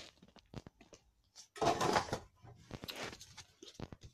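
Rustling and small clicks of trading cards being handled and put back into their box, with one louder rustle about one and a half seconds in.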